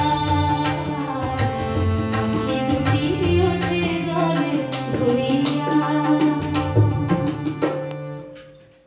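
A woman singing a Bengali song to her own harmonium, with sustained reed chords under the voice and sharp hand-drum strokes in accompaniment. The music fades out near the end.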